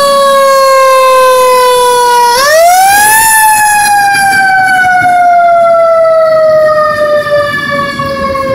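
Fire truck siren wailing loudly: its pitch sinks slowly, sweeps quickly up about two and a half seconds in, then slowly falls away again.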